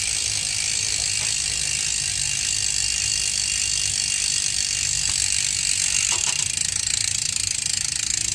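Halo dirt jump rear hub freewheeling as the wheel spins, its pawls giving a steady, loud, rapid ratcheting buzz.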